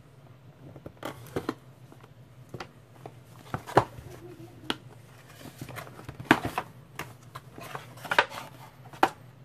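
Cardboard product box being opened and handled: scattered sharp clicks, taps and short scrapes of cardboard as its seal is worked at and the sleeve slid off, over a faint steady low hum.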